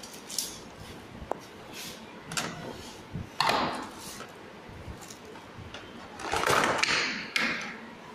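Plastic bag crinkling and rustling as a projector wrapped in it is lifted and shifted on a desk, with a few light knocks from its metal ceiling-mount bracket. The longest, loudest rustles come about three and a half seconds in and again from about six to seven seconds in.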